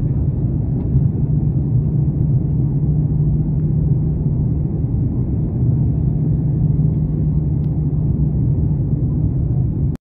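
Steady low rumble of a jet airliner's engines and airflow, heard from inside the passenger cabin while the aircraft climbs away from the ground.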